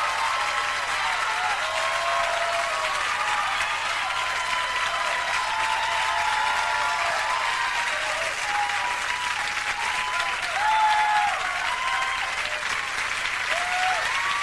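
Concert audience applauding and cheering, with scattered shouts rising above the clapping.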